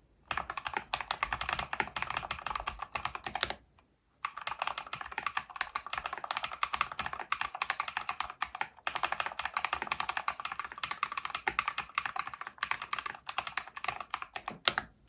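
Fast typing on a full-aluminium-case mechanical keyboard with Holy Panda tactile switches: a dense, continuous run of keystrokes, stopping for about half a second near four seconds in, with one louder keystroke near the end.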